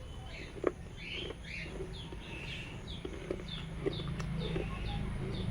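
Small birds chirping over and over in short falling notes, with a few sharp clicks.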